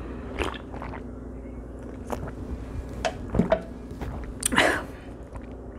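A person drinking from a can and chewing fried catfish close to the microphone, with scattered clicks and knocks. A short, louder burst of noise comes about four and a half seconds in, over a steady low hum.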